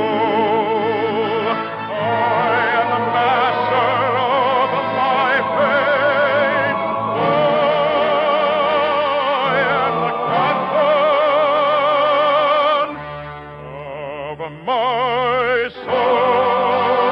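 Lush studio-orchestra music carrying a sweeping melody with heavy vibrato, thinning out briefly near the end before swelling again. The sound is narrow and dull, as on an old radio transcription.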